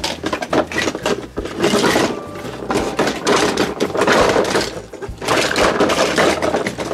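Hard plastic scraping, creaking and clattering as the body of a large plastic toy car is pulled off its plastic base. It is a busy stream of clicks and rubbing throughout.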